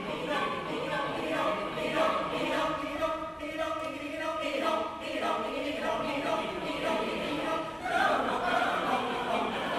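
Mixed choir of men's and women's voices singing a cappella in sustained chords, swelling louder and fuller about eight seconds in.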